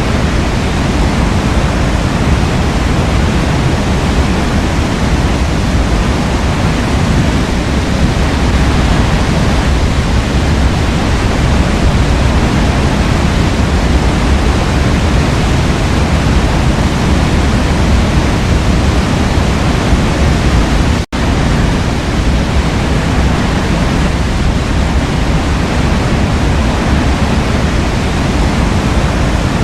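Waterfall: steady rushing of falling water, with a sudden brief dropout about two-thirds of the way through.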